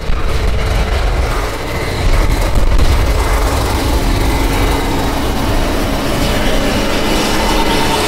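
Case IH combine harvester running as it cuts wheat: a loud, steady rumble of engine and threshing with a broad wash of noise.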